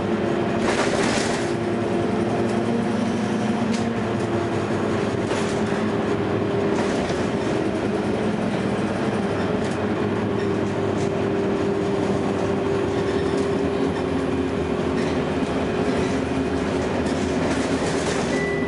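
Interior sound of a 2009 Gillig Low Floor hybrid bus under way, its Cummins ISB diesel and Allison EP40 hybrid drive giving a steady hum with a slightly wavering tone over road noise. A brief hiss comes about a second in, and scattered clicks and rattles run through it.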